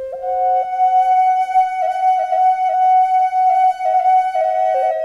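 Background music: a slow melody of long held notes with small quick ornamental flicks, several notes overlapping.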